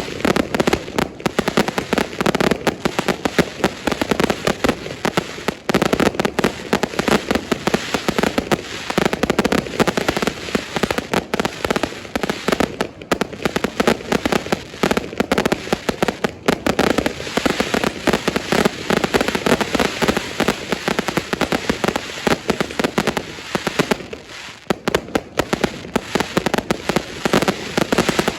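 Fireworks going off in a dense, continuous barrage of rapid bangs and crackles, with a brief thinning about three-quarters of the way through.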